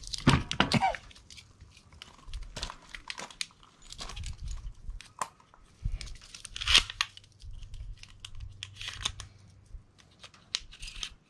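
Rustling and scattered sharp clicks of handling noise close to the microphone, irregular and at a moderate level, with a louder rustle about a third of a second in and another near seven seconds.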